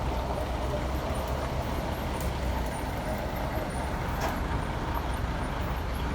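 A heavy engine runs steadily with a low rumble, and a single sharp click sounds about four seconds in.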